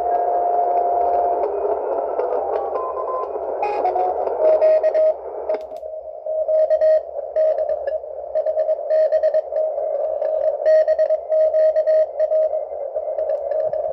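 Receiver audio from a uSDX shortwave transceiver in CW mode: band hiss with a steady carrier whistle, a few stepped tuning tones, then Morse code signals keyed on and off around a single pitch. About six seconds in the hiss narrows sharply as the filter is set to 200 Hz, and the background holds no noise from the OLED display.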